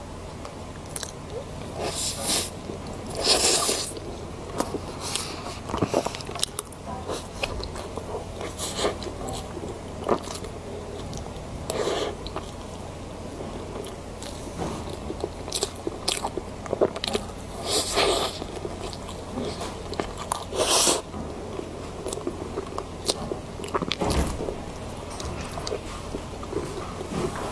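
Close-miked eating: a person biting and chewing food, with many sharp crunches, the loudest bites coming about two to three seconds in and again near eighteen and twenty-one seconds. A steady low hum runs underneath.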